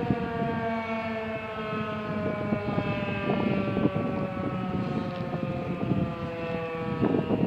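Federal Signal 2001-SRNB electromechanical warning siren winding down, its single tone sliding slowly lower in pitch and dying away near the end. Wind buffets the microphone underneath.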